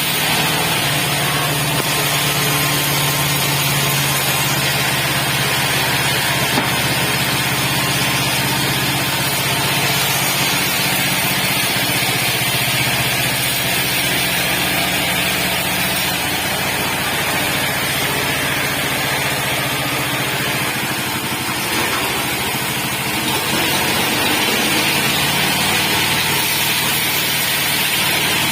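Horizontal band sawmill driven by a 9-horsepower engine, running steadily on a test run, with a steady engine hum under a higher hiss. The level dips slightly about two-thirds of the way through, then recovers.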